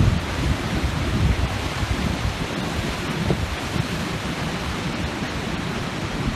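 Steady roar of ocean surf, with wind buffeting the microphone in gusty low rumbles.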